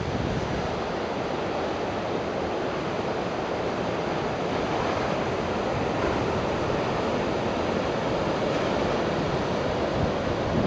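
Ocean surf breaking steadily on a beach, with some wind on the microphone.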